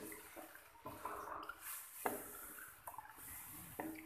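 Wooden spoon stirring soaked dried plums and their water through hot sugar syrup in a karahi: faint sloshing of liquid, with a few light knocks of the spoon against the pan.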